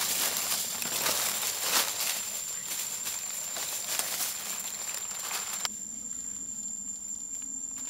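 A cricket trilling steadily at a high pitch, over dense crackly rustling and scraping from close handling of the ground. The rustling cuts off abruptly about five and a half seconds in, leaving the trill alone.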